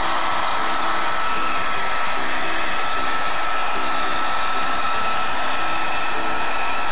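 Hair dryer running steadily: an even blowing hiss with a thin, constant whine over it.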